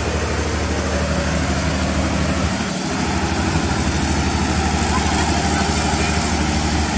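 Passenger coaches of a Bangladesh Railway intercity train rolling past at low speed: a steady rumble of wheels on rail over a constant low engine hum, dipping briefly a little under three seconds in.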